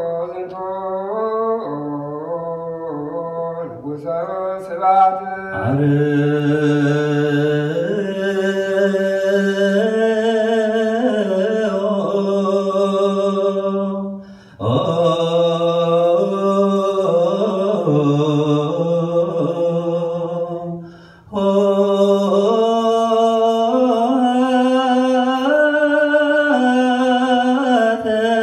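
Ethiopian Orthodox liturgical chant sung by a group of voices, in long held notes that step up and down in pitch. The singing grows fuller and louder about five seconds in, and breaks off briefly twice, about halfway and about two-thirds of the way through.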